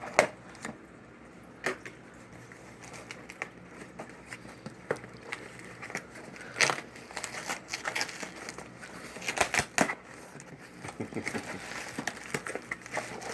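A package being opened by hand: its packaging crinkling, rustling and tearing in scattered snaps, with louder bursts about seven seconds in and again around nine to ten seconds.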